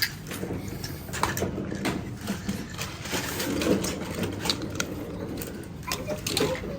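Irregular small clicks and clattering of plastic toy cars being handled and knocked against a toy parking garage.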